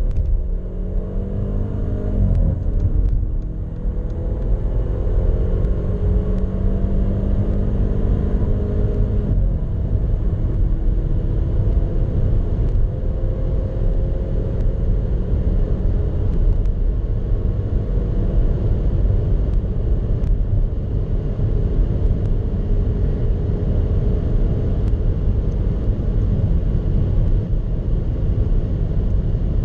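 Cabin sound of the Mercedes-Benz CLA 250's turbocharged 2.0-litre four-cylinder under full-throttle acceleration, the engine note rising and dropping back at each upshift. At high speed, up against its 210 km/h winter-tyre limiter, road and wind noise take over the engine.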